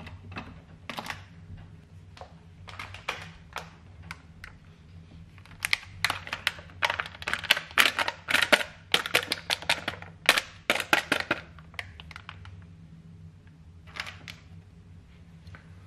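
Crinkling and crackling of a plastic pack of diced speck being handled and shaken out, a dense run of sharp crackles in the middle with scattered ones before and after. A steady low hum runs underneath.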